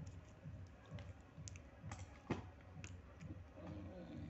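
Faint, irregular clicks of a computer keyboard and mouse, over a low steady hum.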